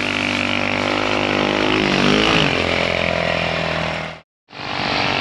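Polaris RZR 200 youth side-by-side on snow tracks running under power, its small single-cylinder four-stroke engine and CVT giving a steady drone. The pitch dips and wavers about two seconds in, then the sound cuts out abruptly for a moment near the end and comes back.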